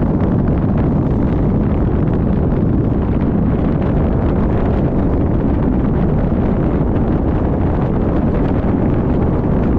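Loud, steady low rumble of wind buffeting the microphone, with vehicle noise underneath, as from a moving car.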